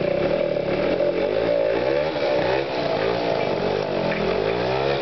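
Motor scooter engine being revved up and down repeatedly, several quick rises and falls in pitch over a few seconds.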